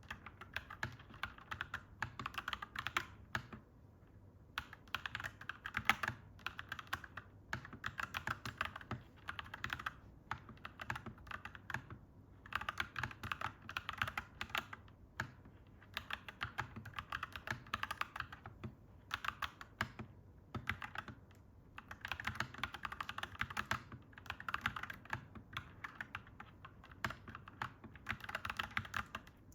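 Mechanical keyboard typing: rapid, clacky keystrokes in runs of a few seconds, broken by brief pauses.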